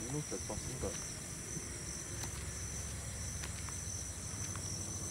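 A steady, high-pitched chorus of crickets chirping, with a couple of brief voices in the first second.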